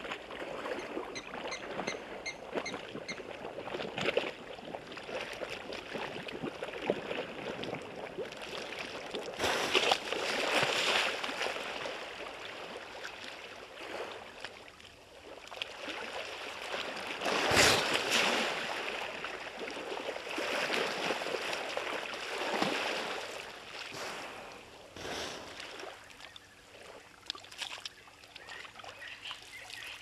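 Hippopotamus wading and rolling over in shallow water, the water splashing and sloshing in uneven surges, loudest a little past the middle.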